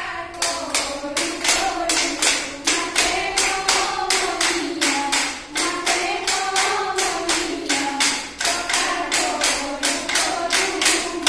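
Women singing a Jeng Bihu song together, kept in time by a steady beat of sharp hand claps at about four a second.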